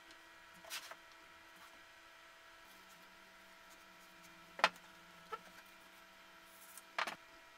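Plywood parts knocking and clacking as they are handled and the hinged plate is tilted: four short knocks, the loudest about halfway through and another near the end, over a faint steady electrical hum.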